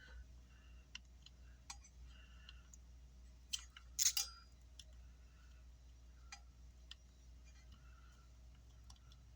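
Faint clicks and taps of small hand tools working on a circuit board, with a sharper double click about four seconds in.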